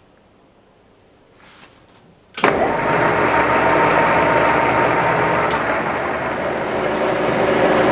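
Homemade surface grinder switched on about two and a half seconds in: its motor comes up to speed almost at once and then runs steadily and loudly.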